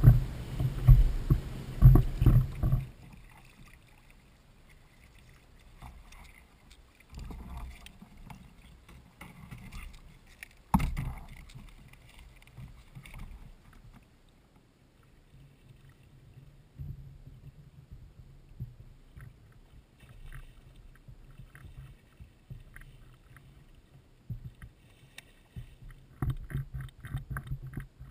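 Water lapping and knocking against a sit-on-top fishing kayak. Low buffeting on the camera microphone is loudest in the first few seconds, a single sharp knock comes about eleven seconds in, and small clicks and knocks cluster near the end.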